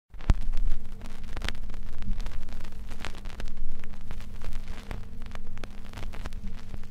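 Crackling hiss with irregular sharp clicks over a steady low hum, rising and falling in level.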